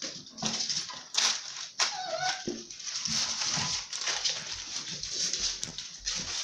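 German shorthaired pointer puppies playing, with scuffling noise and a short whining yelp about two seconds in.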